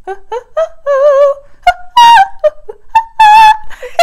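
A woman singing a short wordless melody: a few quick notes, then long held notes with strong vibrato that climb higher.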